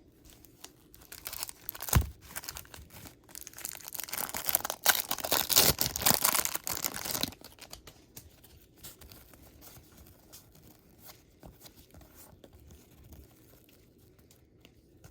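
A trading-card pack wrapper torn open and crinkled: a sharp snap about two seconds in, dense crackling from about four to seven seconds, then light ticks of cards being handled.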